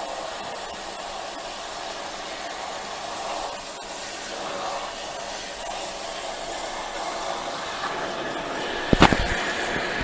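Shower water running steadily into the wash tub of a twin-tub camping washing machine as it fills toward the top line. A couple of sharp knocks come near the end.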